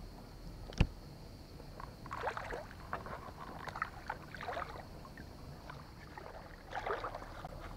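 Light splashing and sloshing of shallow water, mixed with handling noises, with one sharp click about a second in.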